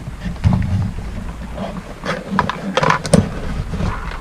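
Handling noise on a workbench: rustling and a few knocks as packaging and a soldering iron are moved about, over a low rumble.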